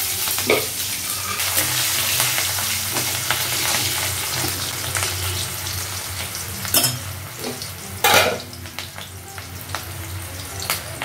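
Onions sizzling as they fry in hot oil in a pan, being stirred, with a spatula clanking against the pan a few times. The sizzle starts loud and slowly dies down.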